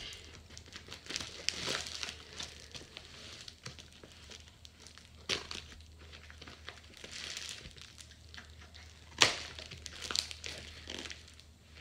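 Plastic wrapping and packing tape crinkling as a taped parcel is cut open with scissors, with scattered small snips and clicks. One sharp snap about nine seconds in is the loudest sound.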